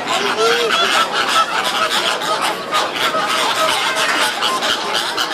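A flock of birds calling, many short overlapping calls.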